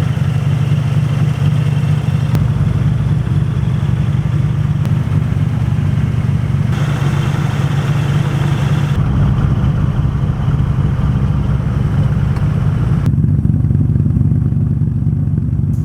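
Nissan Skyline R34 GT-R's twin-turbo RB26 straight-six running steadily at low revs, with no revving. The background changes abruptly a few times, as if several shots are cut together.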